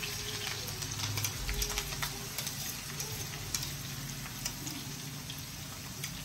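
Ground green chilli and garlic paste sizzling in hot oil in a wok, with clicks and scrapes of a spoon working the paste out of a steel mixer jar.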